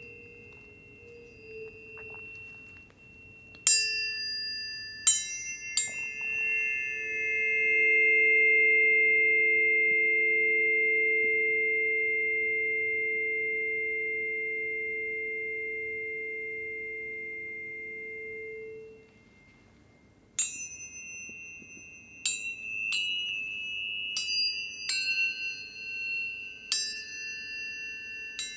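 Planetary tuning forks struck one after another, each strike a sharp click followed by a pure ringing tone. Three strikes a few seconds in ring on and fade slowly to near silence, then a quicker run of strikes follows, their tones overlapping.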